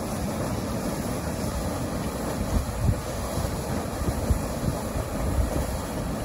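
Steady rushing of floodwater surging up out of a submerged storm drain into a flooded street, with irregular low rumbles of wind on the microphone.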